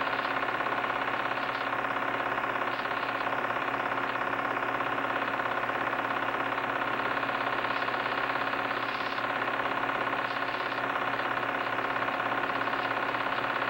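Home-movie film projector running: a steady mechanical whir with a fast, even flutter.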